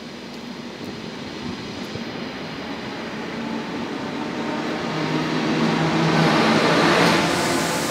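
Yellow NS double-deck electric passenger train pulling out past the platform: the rolling noise of its wheels on the rails grows louder and is loudest about seven seconds in as the last carriage goes by. A low steady motor hum joins from about five seconds in.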